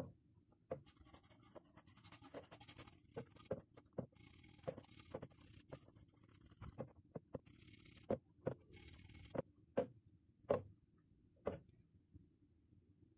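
Steel wire brush scrubbing a rusty axe head in soapy water, in spells of scratchy brushing. Sharp knocks scattered throughout, the loudest about ten seconds in.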